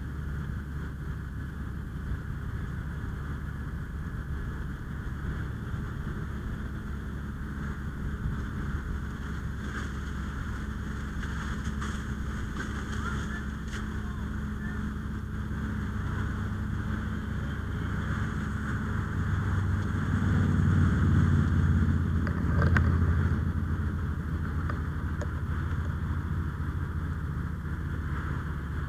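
Fire engine's pump running steadily to supply the hose lines, a low engine drone that grows louder for a few seconds about twenty seconds in.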